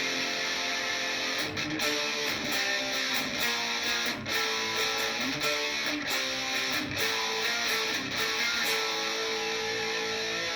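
Epiphone SG Modern Figured electric guitar played through an amplifier as a tone sample, a continuous run of chords and notes with picked attacks.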